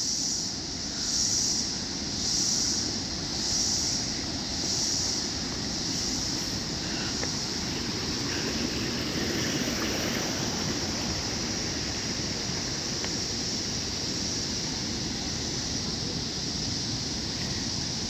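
Steady rushing roar of Jang Waterfall (Nuranang Falls), a tall waterfall heard through its drifting spray. For the first few seconds a high insect buzz pulses over it about once a second.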